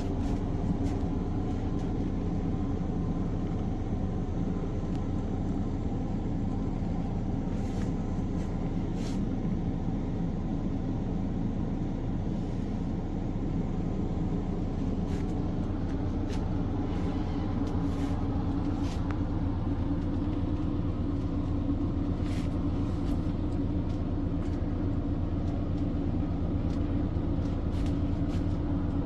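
Steady low mechanical hum made of several held tones, running evenly without change, with a few faint clicks.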